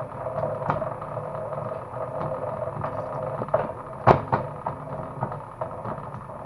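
Home-built cable stripping machine running with a steady motor hum, with scattered clicks and one sharp knock about four seconds in.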